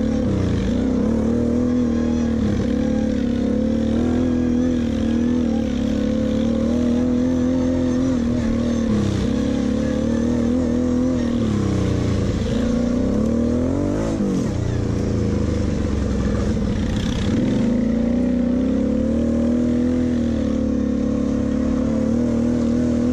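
Kawasaki quad's V-twin engine running under the rider at low trail speed. Its pitch dips and climbs again and again as the throttle is eased and opened, with a sharper rev-up a little past halfway.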